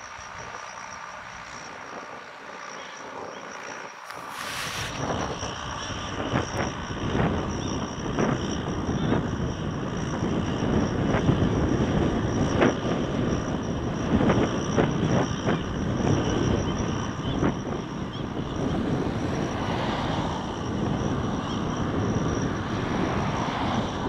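Fendt 415 tractor's six-cylinder diesel engine working steadily under load, pulling a reversible plough through the soil; the sound grows louder from about five seconds in.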